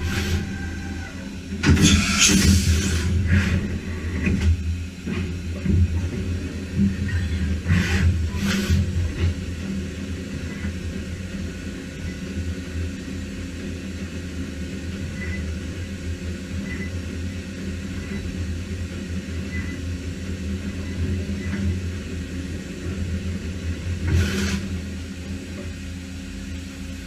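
A 5-axis CNC machining center running: a steady low hum and rumble, broken by a few short hissing bursts, one about two seconds in, two around eight seconds, and one near the end.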